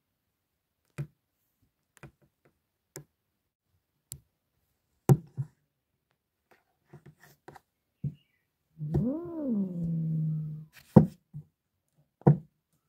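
A tabby cat gives one drawn-out yowl about nine seconds in, lasting about two seconds, that rises then falls in pitch and trails off on a level note. Around it come short sharp knocks, about one a second at first, the loudest just after the yowl.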